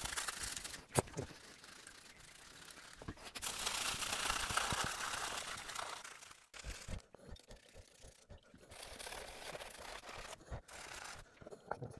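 Stiff wheel brush scrubbing the bare aluminium of a Volvo B5254T engine block wet with acid aluminium cleaner, bristles scraping in spells of strokes, the longest spell about four seconds in. Breathing through a gas-mask respirator.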